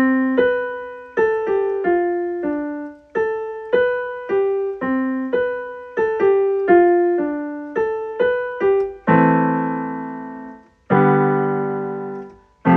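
Solo piano or electric piano intro: a melody of single notes, each struck and fading, about two a second, then two full sustained chords near the end.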